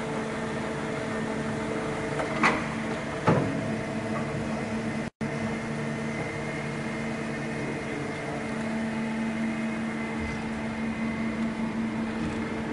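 Steady hum, with a few constant tones, from a powered-up Mori Seiki MV-35/40 vertical machining centre on test run. Two sharp knocks come about two and a half and three and a half seconds in.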